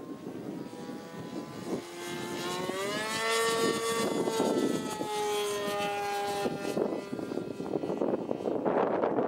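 Radio-controlled Sbach 342 aerobatic plane's Irvine 53 two-stroke nitro glow engine in flight, a buzzing note that rises in pitch about two seconds in, holds, then drops in pitch in steps as the plane passes, and fades out about seven seconds in. Wind rushes on the microphone before and after the engine is heard.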